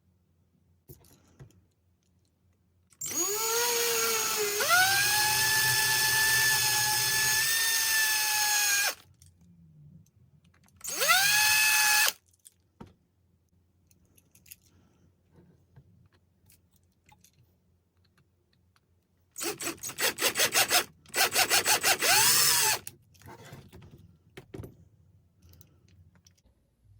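Small power drill drilling out the rivets of a diecast toy car's base: the motor spins up with a rising whine and runs for about six seconds, runs again briefly, then stutters in quick on-off pulses near the end.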